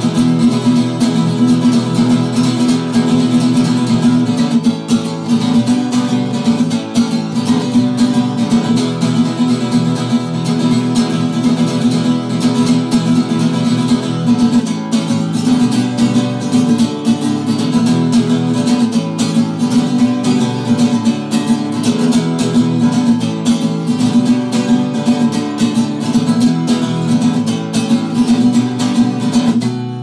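Background music: an acoustic-guitar instrumental with strummed chords.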